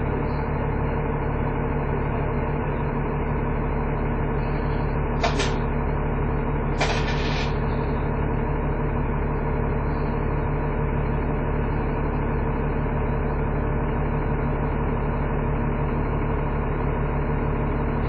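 Dennis Trident 2 double-decker bus's engine idling at a standstill, heard from inside the saloon as a steady drone. Two short hissing sounds come about five and seven seconds in.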